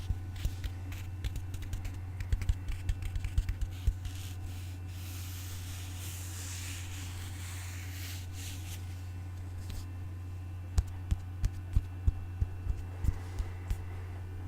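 ASMR tapping and scratching on objects: a run of light, quick taps, then a few seconds of scratching or rubbing, then slower, separate taps again, over a steady low hum.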